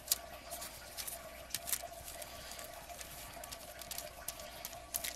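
Wet, glued paper scraps being handled and pressed onto a paper tag, making soft irregular crinkles and small taps over a steady faint background hum.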